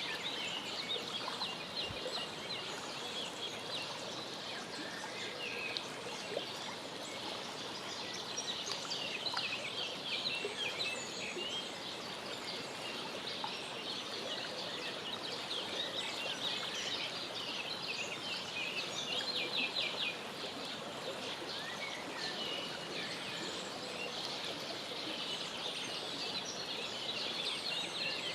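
Mallard ducklings peeping continuously, many short high peeps overlapping, over steady outdoor background noise.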